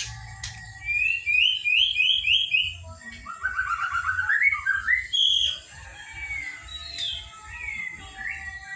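Young white-rumped shama singing: a run of about five quick rising notes, then a faster string of lower notes that climbs in pitch, then scattered varied whistles.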